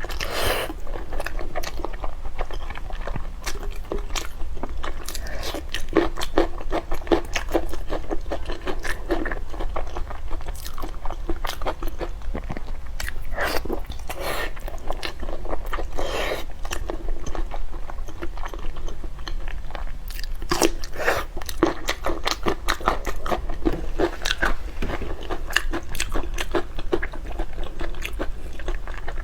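A person chewing and biting crunchy food close to the microphone, with dense, quick crunches throughout.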